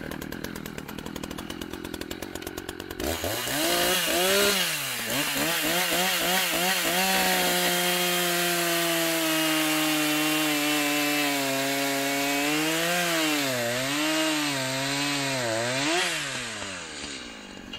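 Echo CS590 Timberwolf 59.8 cc two-stroke chainsaw idling, then revved up several times about three seconds in. It is held at full throttle cutting through a log of dry poplar, and its pitch wavers a few times as the chain bites near the end of the cut. After about 16 s it drops back toward idle.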